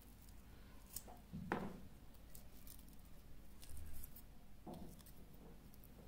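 Faint handling noises from fingers working a stripped coaxial cable end: scattered soft clicks, with a sharper knock about a second and a half in and a duller bump near four seconds.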